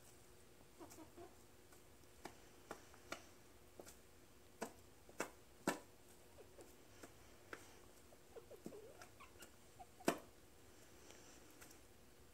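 Quiet sounds from caged chickens: a few short, soft, low clucks and scattered sharp taps and clicks, the loudest tap about ten seconds in.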